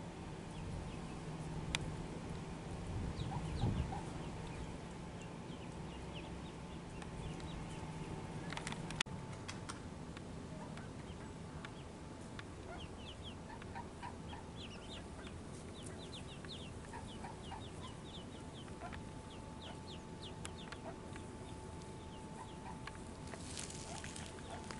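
Mallard ducklings peeping: many short, high cheeps, more of them in the second half of the clip.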